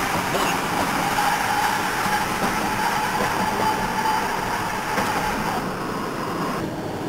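Car driving at road speed, heard from inside the cabin: a steady rush of tyre and road noise with the engine underneath. The higher hiss drops away suddenly near the end.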